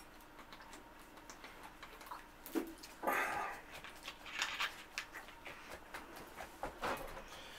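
A man breathes out heavily in one loud rush after gulping from a plastic soda bottle, with small clicks and crinkles as the bottle's cap and plastic are handled.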